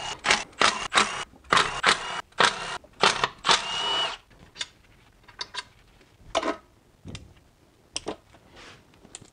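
Milwaukee M12 Fuel cordless ratchet running in short bursts, about two a second, spinning out the valley pan cover-plate bolts. The last and longest burst ends in a brief motor whine about four seconds in. After that come a few scattered light clicks and taps.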